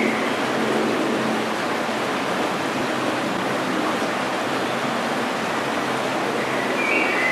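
Steady rushing of circulating water in an aquarium hall, with a low steady hum under it from the tank's pumps, and a brief high chirp near the end.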